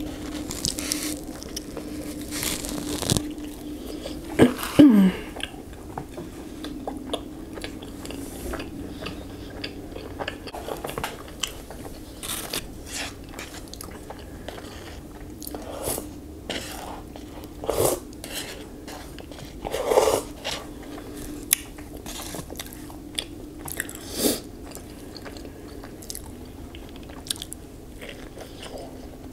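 Close-miked chewing and biting of a bacon burger: soft wet mouth clicks and squishes, with a few louder bites along the way.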